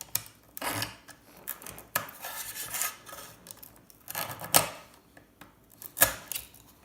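A metal tool scraping and prying components off an electronic circuit board: irregular scrapes and sharp clicks, the sharpest about four and a half and six seconds in.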